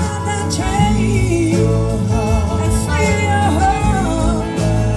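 Live band playing a slow soul-blues song. An electric slide guitar carries a gliding, voice-like melody over bass, drums and rhythm guitar.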